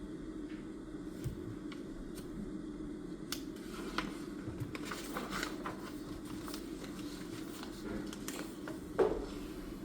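Light handling sounds of desk study: small clicks and rustles, as of paper and a pen being handled, over a steady low room hum, with a single louder knock on the desk near the end.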